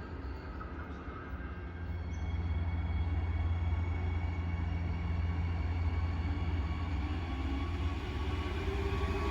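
Adelaide Metro 4000-class electric multiple unit approaching: a low rumble with faint steady tones above it, growing louder about two seconds in.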